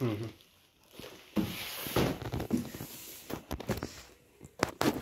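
Large cardboard box being handled and turned over on a hard floor: rustling and scraping of the cardboard, with a few sharp knocks near the end.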